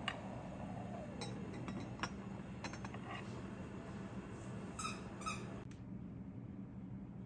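Two clinks of a ceramic lid against a ceramic pot, each with a short ring, about five seconds in. Before them come scattered small pops and ticks from the simmering black rice, over a steady low hum.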